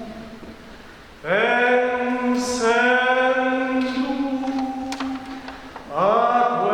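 Choir singing long held chords in phrases: one phrase fades out, a new one starts about a second in and dies away near six seconds, and another begins straight after.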